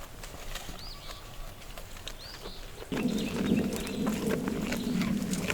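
Goats browsing on freshly cut tree branches: scattered clicks and snaps of twigs and leaves, with a few short bird chirps. About three seconds in, a louder, steady rustling starts, thick with small clicks.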